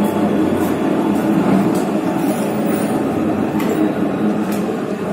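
Platen die punching and creasing machine running: a steady mechanical rumble from its electric motor, belt drive and flywheel, with a few sharp clacks at irregular spacing.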